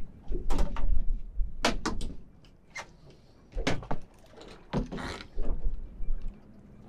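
A string of knocks and clatters from a fishing rod and descender rig being handled on a small boat, over a low rumble.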